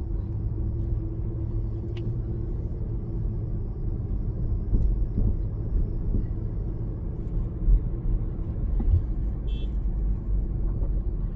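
Car being driven along a road: a steady low rumble of engine and road noise.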